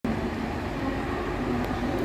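Mumbai suburban local electric train running into the station with a steady rumble and a faint hum.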